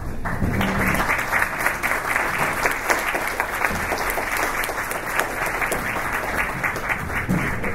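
An audience applauding: dense, steady clapping from many people, starting just after the beginning and holding evenly.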